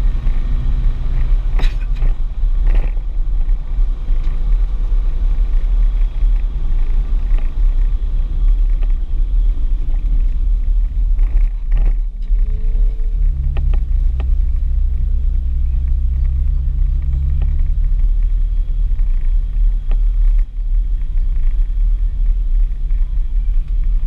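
Audi S4 engine and road noise heard inside the cabin, a steady low rumble as the car drives slowly, with a few short knocks.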